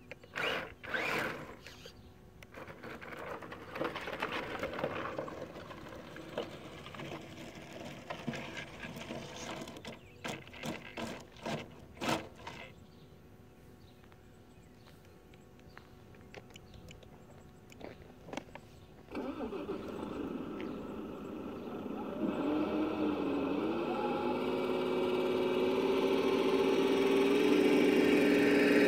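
Irregular crunching and scraping on gravel. About two-thirds of the way in, an engine-like drone starts suddenly, wavers briefly in pitch, then holds steady while growing louder.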